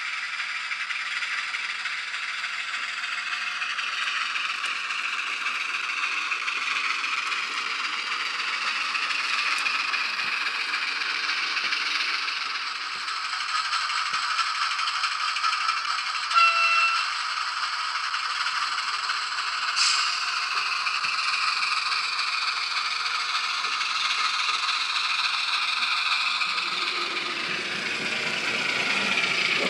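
ESU LokSound sound decoder playing a Y6400 diesel shunter's engine sound through a small speaker in the cab of a model locomotive. It is thin, without bass, and the engine note rises and falls as the model runs. A brief horn toot comes about halfway through, and a lower rumble from the running model joins near the end.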